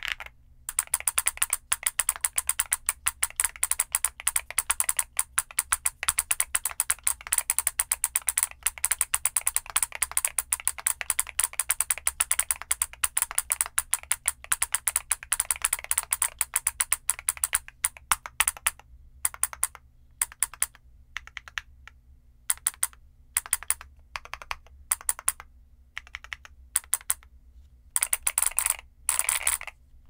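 Fast typing on an MMStudio Class80R2 mechanical keyboard with Gateron EF Grayish tactile switches and KDA-profile PBT keycaps, its built-in solenoid clicking along with the keystrokes. The typing is a steady rapid clatter for the first half, then breaks into short bursts with pauses.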